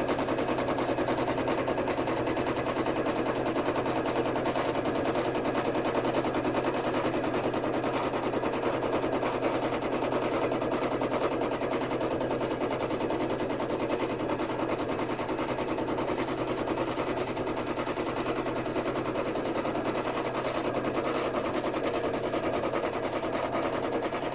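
Sewing machine running steadily for free-motion stitching, a fast, even rattle of needle strokes.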